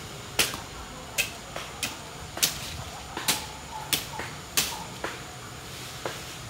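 Footsteps while walking, a sharp click about every two-thirds of a second, over a faint low hum.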